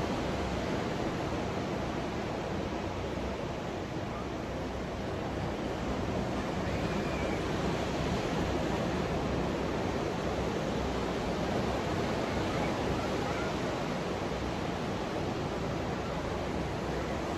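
Ocean surf breaking along a beach: a steady, even rush of noise.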